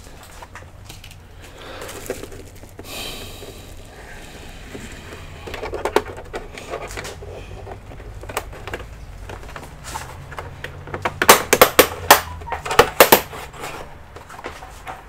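Clicks and clatter of small hard objects being handled, with a burst of loud, sharp clacks near the end.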